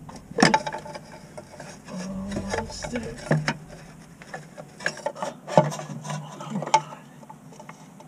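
Metal clanks and scraping of a pry bar and hands working a stuck transmission loose under a vehicle: a handful of sharp knocks spread through, with rubbing and scraping between them.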